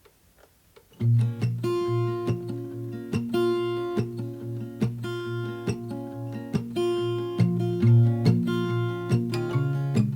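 Background music: acoustic guitar strumming with a steady beat, starting about a second in.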